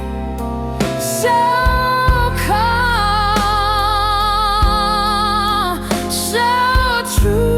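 Slow soul-blues ballad music with bass and light drums under it. A female voice holds one long wordless note with vibrato through the middle, then sings shorter held notes near the end.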